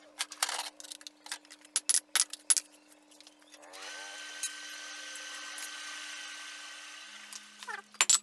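Hammer blows ringing on red-hot chainsaw guide bar steel on the anvil, a quick run of sharp strikes, then an electric forge blower spinning up with a rising whine and running steadily for about four seconds before winding down. The hammering starts again right at the end.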